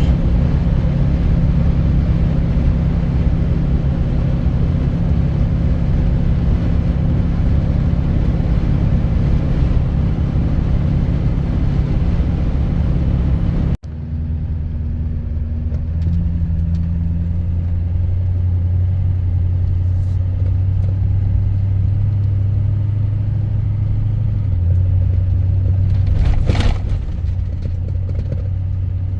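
Vehicle engine and road noise while driving, a steady low drone. There is an abrupt cut about halfway through, after which the engine drone shifts pitch slightly, with a brief rattle or knock near the end.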